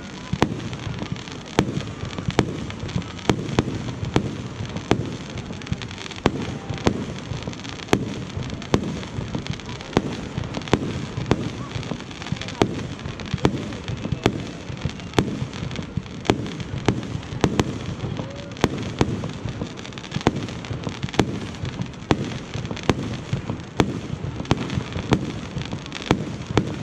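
Fireworks display: a steady run of sharp bangs, roughly one to two a second, over a continuous low rumble.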